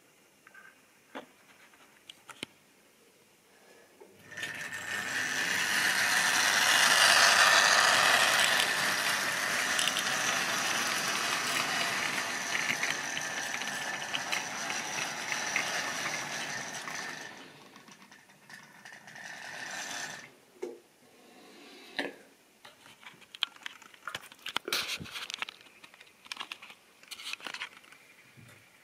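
Model railway goods train running past close by: the locomotive's small electric motor and gears whirring and the wagon wheels rattling and clicking on the track. It swells about four seconds in, is loudest a few seconds later, then fades away. Scattered light clicks and taps follow.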